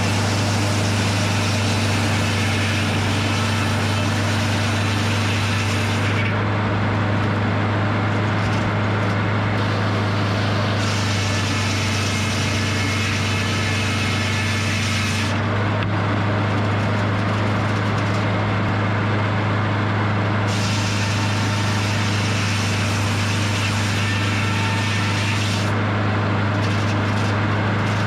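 Edmiston hydraulic circle sawmill running: a steady, loud engine drone, with a hissing noise over it that drops away and comes back every few seconds.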